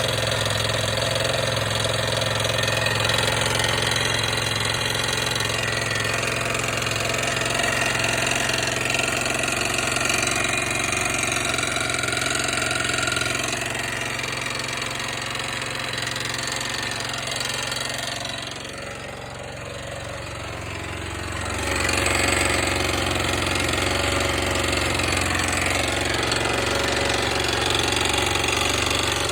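Yamaha XT/TT600 air-cooled single-cylinder four-stroke engine idling steadily. About eighteen seconds in it goes quieter for roughly three seconds, then returns to its earlier level.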